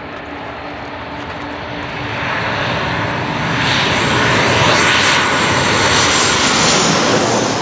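Boeing 737 jet airliner coming in to land and passing low overhead. Its engine noise builds steadily from about two seconds in and is loudest as the aircraft passes overhead, with a high whine over the noise, then eases slightly near the end.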